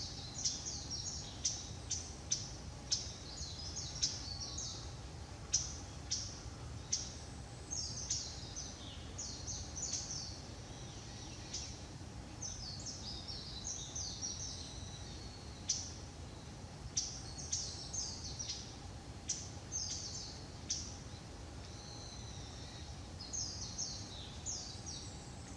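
Japanese bush warbler giving its winter call notes (jinaki): short, dry 'chat' calls repeated irregularly, about one every second or so, over a steady low background rumble.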